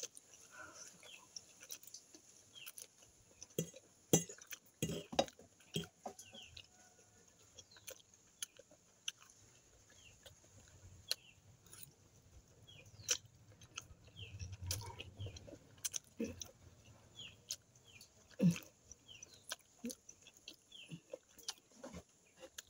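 Chickens clucking off and on, with scattered soft clicks of a fork on a plate and the sounds of someone eating spaghetti.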